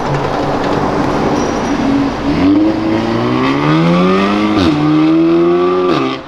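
Audi S3 sedan's engine accelerating away: a steady engine note for the first two seconds, then the revs climb, drop sharply on an upshift about halfway through, and climb again before dropping on a second shift near the end.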